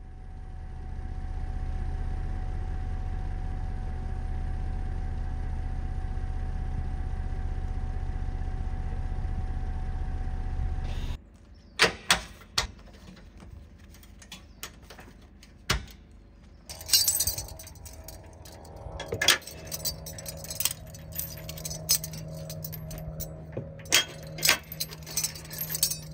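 A steady low rumble that stops abruptly about eleven seconds in, followed by scattered metallic clinks and rattles, coming thicker toward the end, as the safety chain, pins and clips of a tow hitch are handled.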